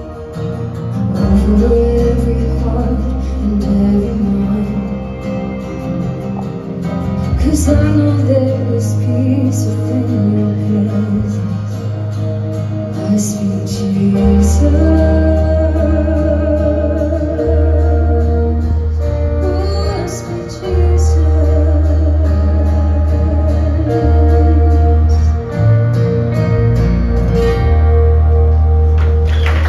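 Live band music with acoustic guitar, sustained bass notes and singing with a wavering sung melody. Applause breaks out just at the end as the song finishes.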